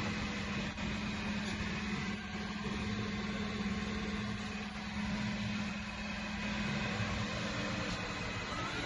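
The spindle of a YCM NMV106A vertical machining center running at a steady speed, giving a steady hum with faint higher tones over machine noise. Right at the end a rising whine begins as the spindle speeds up.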